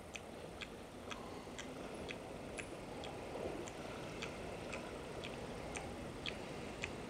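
Camera control dial being turned click by click, stepping through shutter speeds: a row of small, even ticks about two a second.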